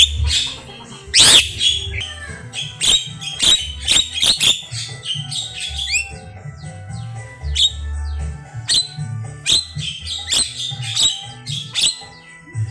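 Javan myna (jalak kebo) singing in full voice: a fast, varied string of sharp squawks, clicks and whistles, with a long swooping whistle about a second in and a rising one midway.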